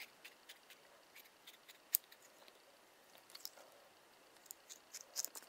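Small scissors snipping through the rubbery skin of a squishy toy tomato: a scatter of faint, quiet snips and clicks, with one sharper snip about two seconds in.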